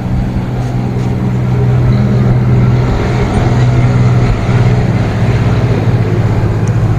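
A running machine's steady low hum, a little louder from about two seconds in.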